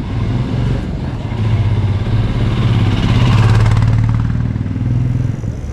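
A motor vehicle engine running close by, swelling to its loudest about three to four seconds in and then easing off.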